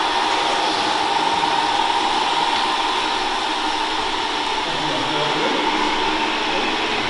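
Radio-controlled scale construction models running: a steady electric motor and gear whine over a noisy background, with faint voices from about five seconds in.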